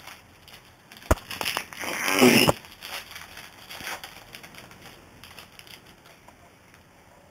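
A foil trading-card pack wrapper being torn open and crinkled: a sharp snap about a second in, then a loud crackling rustle that stops about two and a half seconds in, followed by faint handling noises.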